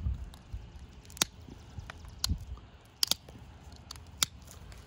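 Pressure flaking with a deer antler tip: a series of sharp, irregular clicks about a second apart as tiny flakes snap off the edge of a stone flake.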